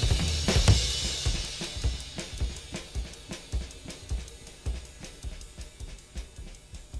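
Background music with a drum-kit beat of kick, snare and cymbals, gradually fading out.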